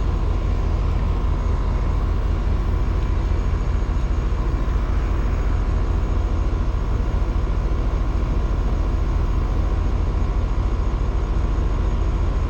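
Rheem Prestige outdoor air-conditioning unit running: compressor and condenser fan giving a steady hum with a fast, even low throb. Its ECM condenser fan motor is failing, intermittently trying to hang up and slow down.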